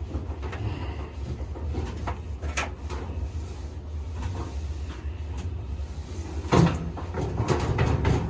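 Clunks and knocks of a clothes dryer's drum and cabinet parts being handled and fitted back into place. A few light knocks come first, then louder clunks about six and a half seconds in and again near the end.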